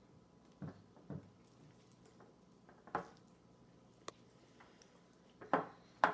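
Cornstarch-and-water slime being mixed in a bowl: about six short, irregular squishes and knocks against the bowl, one of them a sharp click.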